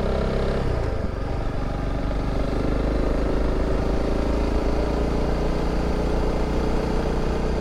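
Honda CRF300 Rally's single-cylinder engine running steadily under way, its note dipping about a second in and then holding steady.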